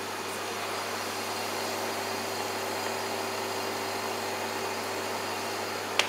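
Steady hum and fan noise of a Desmon refrigerated counter's condensing unit running, with a short click at the very end.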